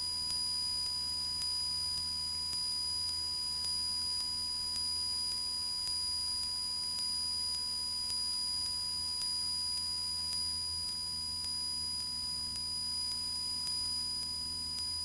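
Steady drone of a Cessna 172's four-cylinder engine in flight, heard faintly through the headset intercom feed, with a thin steady electrical whine over it.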